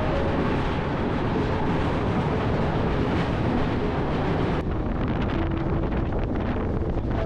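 Steady running noise of the Darjeeling Mail passenger train in motion, with wind buffeting the microphone. A little past halfway the high hiss drops away abruptly.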